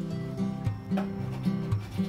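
Background music: a plucked acoustic guitar playing notes in a steady rhythm.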